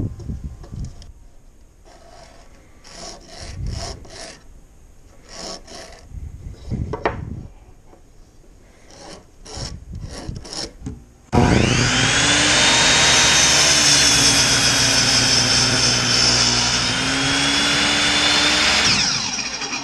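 Pen strokes and tape-measure and square handling, short scratches and taps, while a board is marked. Then about eleven seconds in, an electric miter saw spins up with a rising whine and cuts through a 2x12 board for about seven seconds, its pitch dipping as the blade goes through the wood, before winding down near the end.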